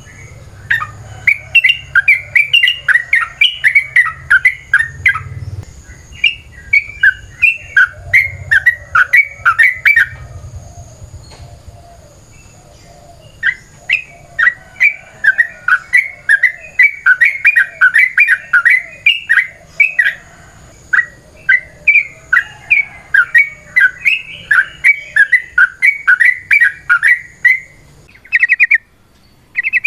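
Yellow-vented bulbul (trucukan) singing long runs of rapid, loud chattering notes. The song breaks off about ten seconds in and resumes a few seconds later.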